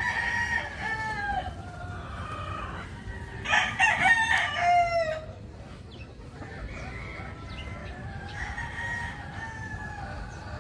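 Gamefowl roosters crowing one after another. The loudest crow comes about three and a half seconds in and lasts over a second, ending in a falling note; fainter crows come at the start and near the end.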